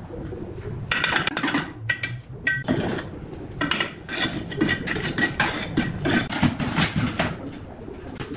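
Steel trowel scraping and tapping wet mortar along brick joints, with a rapid run of scrapes and metallic clinks, some of which ring briefly.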